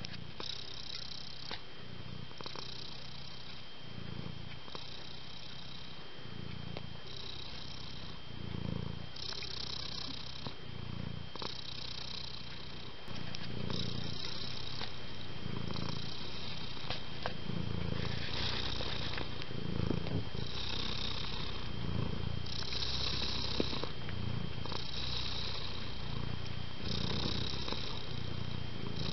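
Domestic cat purring in a steady rhythm, the low rumble alternating with a softer hiss at each breath, about one cycle every second and a half. The purring gets louder about halfway through.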